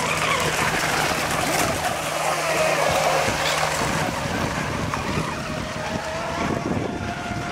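Several radio-controlled racing boats running flat out across the water, their motors making a high-pitched drone that falls in pitch during the first few seconds as one passes, then holds steady.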